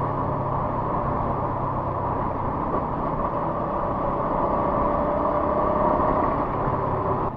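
Motorcycle riding at speed: a steady engine hum under an even rushing noise, which drops off abruptly near the end.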